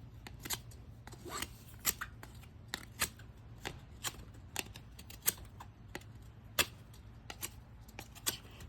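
A knife shaving and scraping a hard stick while whittling: short, sharp cutting strokes, about one or two a second and unevenly spaced, as the blade skins and trims the wood.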